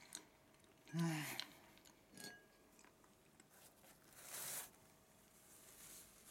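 A short wordless voice sound from the man about a second in, then a click as wooden chopsticks are laid down on an empty bowl, with a brief ring. Around four seconds, a short papery hiss as a tissue is pulled out, followed by faint rustling of the tissue.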